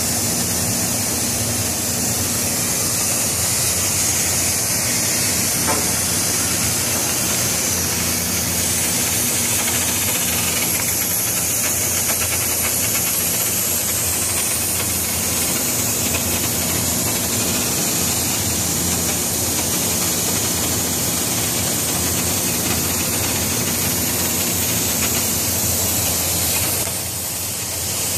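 Oxy-fuel cutting torch on a Bug-O portable track carriage hissing steadily as it cuts through steel plate, with a low steady hum underneath.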